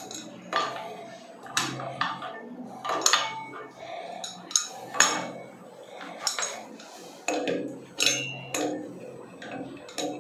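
Adjustable spanner clinking and scraping against the chrome fittings of a wall mixer as its nuts are tightened: a dozen or so irregular, sharp metallic clanks.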